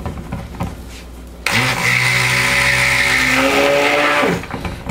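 Electric stick blender running in cold-process soap batter, mixing the lye water into the oils: it switches on abruptly about a second and a half in, runs steadily for about three seconds with a motor hum and hiss, and winds down near the end.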